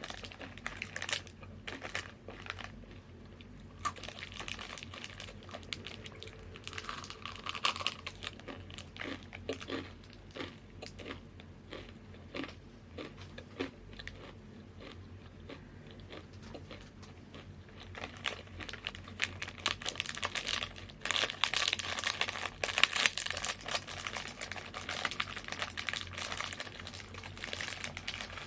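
Crisp chips crunched and chewed close to the microphone, a quick run of sharp crackles, with crinkling and rustling from the snack bag. The crinkling and crackling is densest about two-thirds of the way through.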